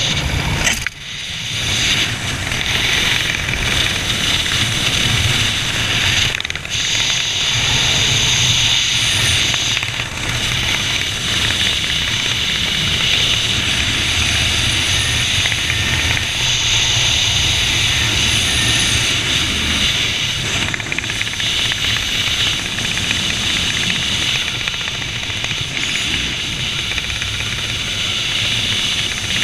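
Steady rush of wind over an action camera's microphone during a parachute descent under an open canopy, a low rumble with a broad hiss over it, briefly dropping away about a second in.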